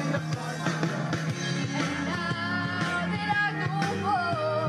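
Group of young singers performing an upbeat pop-rock song through a PA, over amplified drums and bass; the sung melody comes in strongly about two seconds in.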